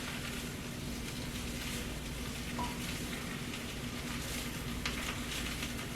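Chicken, shrimp, bacon and mushrooms sizzling steadily in a frying pan, with a few light clicks.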